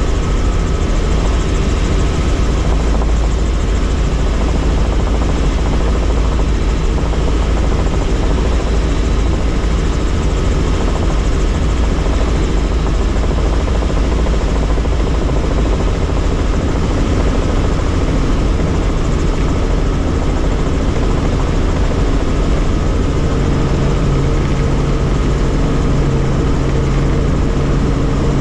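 Helicopter in flight, its rotor and engine running with a loud, steady noise that is heaviest in the low end. A low hum comes in about five seconds before the end.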